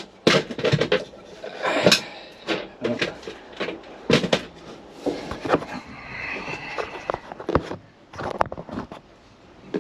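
Irregular knocks, clicks and rattles of plastic and metal parts being handled and pried while a truck's steering column and turn-signal switch are taken apart.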